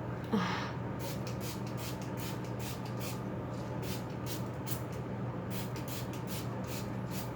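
Hairspray being sprayed onto hair in a rapid series of short hissing spritzes, roughly three a second, over a steady low hum.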